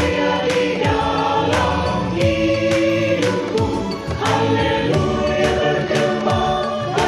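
Church choir singing a hymn in parts over instrumental accompaniment with a steady beat.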